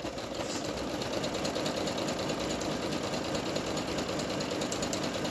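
Singer Mon Ami Nu SY102 computerized sewing machine running steadily at a fast, even stitch rate, sewing a decorative stitch pattern.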